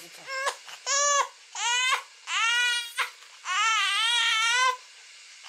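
A young infant, about three months old, crying in a string of about six wails with short breaths between them, the last one the longest. The mother takes it for a hunger cry.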